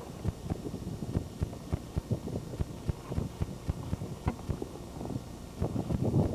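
Irregular dull thumps and knocks, several a second, from wrestlers grappling on a trampoline, over a low rumble of wind on the microphone. Near the end a louder rough rush of handling noise as the camcorder swings.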